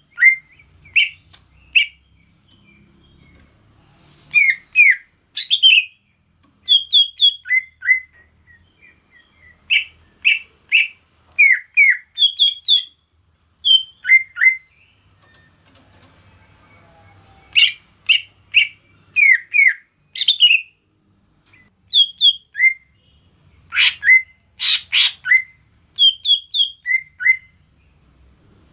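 Cucak ijo (green leafbird) singing: short, clear whistled notes and chirps in quick clusters of two to five, some sliding in pitch, with short pauses between phrases, over a steady high hiss.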